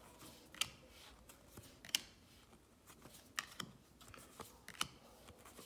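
Baseball trading cards being flipped through by hand: faint, irregular clicks and snaps of card stock sliding off the stack, one card every second or so.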